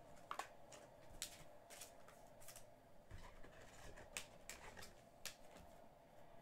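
Faint, scattered clicks and light rustling of trading cards being handled, over a low steady hum.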